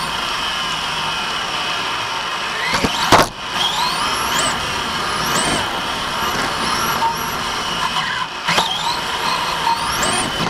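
Electric motor and gear drive of an Asso TC5 RC touring car, heard from a camera mounted on the car: a high whine rises with each burst of acceleration and then drops away, repeating several times over a steady hiss. A sharp knock comes about three seconds in, and another near the end.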